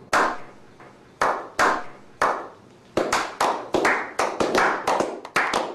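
Slow hand clapping: single claps about a second apart, then from about halfway through quickening to roughly three a second. Each clap has a short ringing tail.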